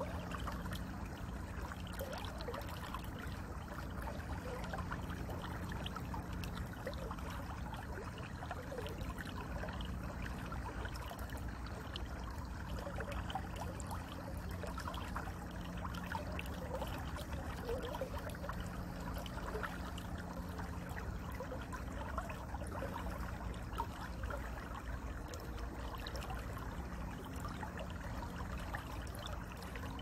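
Small running water trickling and gurgling steadily, with many little splashes over a low, steady rumble.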